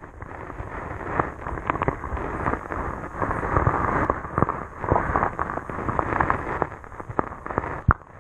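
Shallow lake water heard from underwater at the shoreline: a churning rumble of moving water, full of sharp clicks and crackling pops.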